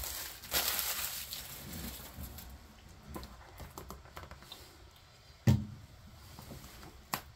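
Thin clear plastic bag crinkling as it is handled, fading into soft handling sounds on a desk. A single sharp thump comes about five and a half seconds in, and a short click near the end.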